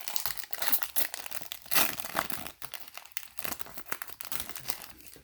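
Foil wrapper of a 2018 Bowman Chrome baseball card pack crinkling and tearing as it is opened by hand, an irregular run of crackles and rustles.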